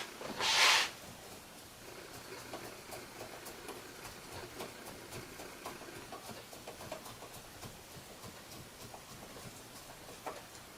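A short rustling scrape near the start, then faint, irregular small clicks and ticks of a 6-32 screw being tightened by hand to hold a metal pad on a clamp end, with one sharper click near the end.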